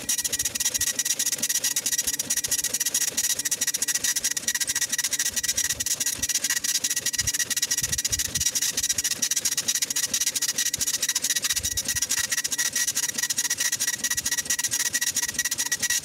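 Impact printer printing line after line on tractor-feed paper: a steady, fast rasping stream of print-head strikes.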